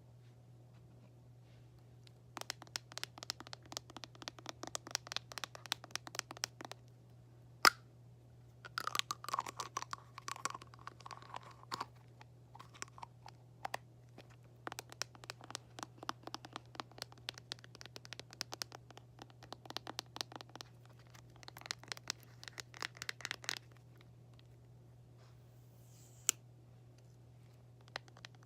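Fingernails tapping and scratching on small objects in quick runs of many taps, broken by short pauses, with one sharper, louder tap about eight seconds in. A faint ringing tone sounds for a few seconds after that, a steady low hum runs underneath, and the tapping stops a few seconds before the end apart from a single click.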